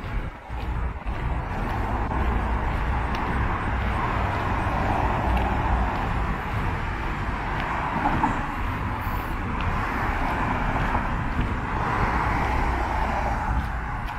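City street traffic: cars passing on the road, the noise swelling several times as vehicles go by, over a steady low rumble.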